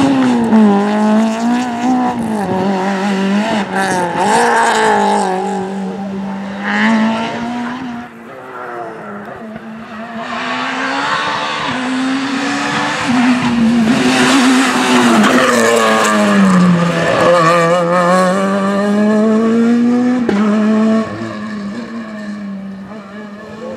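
Rally car engines revving hard on a tarmac stage, the note climbing through each gear and dropping at shifts and lifts, as one car after another goes by. Tyre noise can be heard along with the engines.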